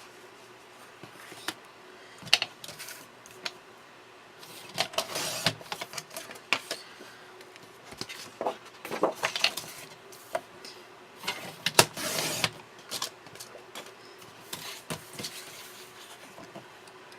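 Paper and small craft tools handled on a table: scattered clicks and taps with short bursts of paper rustling and scraping, the sharpest click about two and a half seconds in and the longest rustle around twelve seconds.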